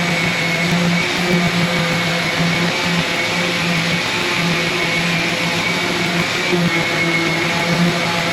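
Guitar music over the steady running noise of a power tool.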